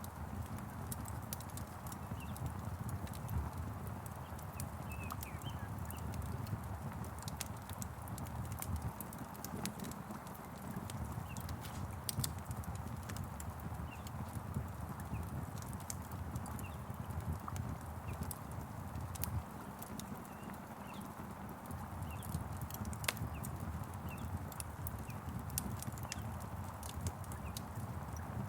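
Wood fire crackling with frequent sharp pops and snaps over a steady low rush of rain and flame, with a few faint bird chirps now and then.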